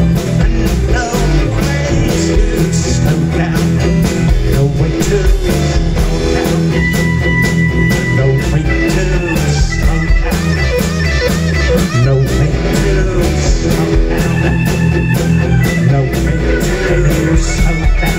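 Live rock band playing an instrumental passage on electric guitar, bass guitar, drums and keyboards over a steady beat. A few held high notes ring out above the band about a third of the way in and again later.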